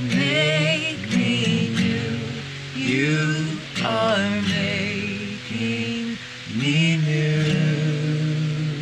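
Singing worship song with strummed acoustic guitar, closing on a long held note near the end.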